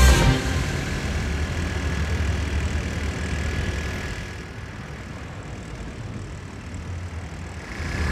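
City street traffic at night: scooters and cars running, a steady low rumble that dips quieter in the middle and rises again near the end.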